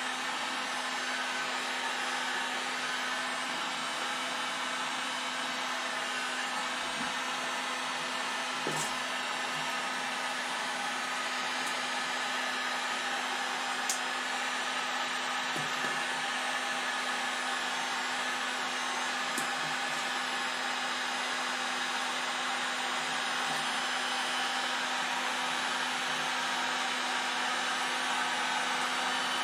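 Electric heat gun running steadily, a blowing rush with a steady hum, and a few faint ticks over it.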